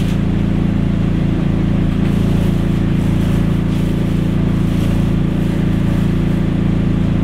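Loud, steady mechanical hum with a low engine-like drone that holds at one pitch and level throughout, from machinery running in a food trailer.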